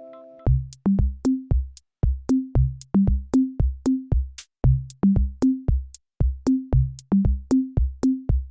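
Background music: an electronic drum-machine beat plays alone, low kick-drum thuds with sharp ticks in a steady rhythm. The sustained keyboard chords drop out about half a second in.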